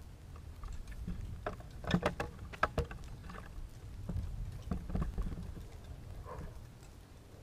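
First raindrops of a thunderstorm, irregular sharp ticks bunched together over a few seconds, over a steady low rumble.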